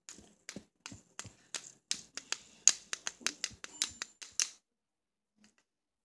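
A quick, uneven run of sharp clicks from a fidget spinner being handled while it spins, about fifteen in four and a half seconds, then it stops.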